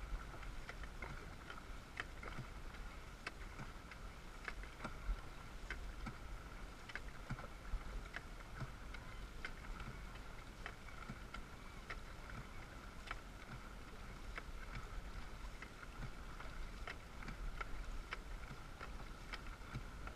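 Water lapping against the hull of a dragon boat drifting at rest, with irregular small clicks and knocks about once or twice a second and a faint steady high hum underneath.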